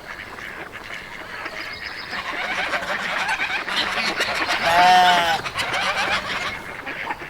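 Farm animals calling: a dense chatter of many overlapping calls that grows louder, then one loud drawn-out call about five seconds in.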